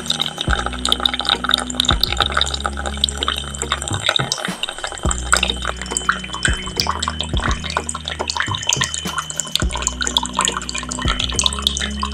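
A thin stream of water pouring from a small pipe into a plastic tub of water, splashing and trickling steadily. A low hum runs underneath and drops out briefly about four seconds in.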